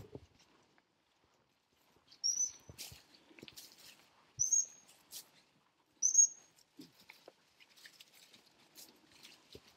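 Three short, high-pitched blasts on a gundog whistle, about two seconds apart, the kind a spaniel handler gives to turn the dog while it quarters cover. Faint footsteps and rustling in between.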